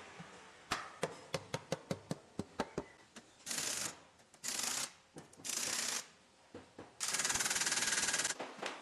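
Industrial woodworking machinery: about ten sharp knocks in quick, uneven succession, then four bursts of hissing, the last and longest about a second and a half.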